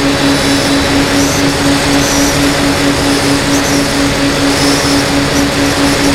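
FPV aircraft's motor and propeller running steadily, heard from onboard in flight with a loud rushing hiss of wind, under a hum that pulses about five times a second.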